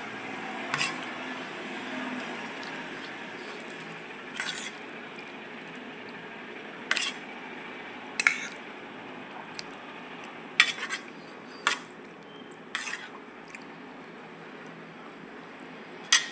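Cutlery clinking against dishes: about ten sharp clinks at irregular intervals, a few in quick pairs, over a steady background hiss.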